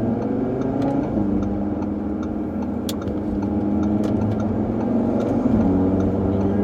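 2018 Audi RS3's turbocharged 2.5-litre five-cylinder engine pulling under acceleration, its pitch climbing and then dropping with an upshift about a second in, running steady, and dropping again with another upshift near the end.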